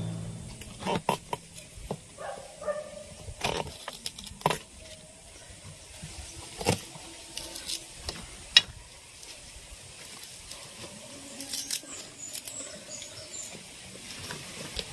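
Scattered light clicks and taps of a knife and fingers working hard betel nut kernels on a banana leaf, with one sharper knock about eight and a half seconds in.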